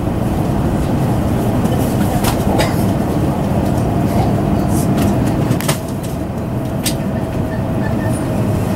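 A train running, a low rumble with a faint steady whine and scattered clicks.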